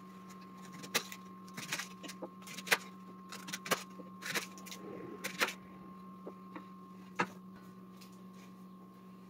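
Irregular sharp knocks and clicks from hands working at a kitchen cutting board with a leek, over a steady low hum. The knocks stop about seven seconds in.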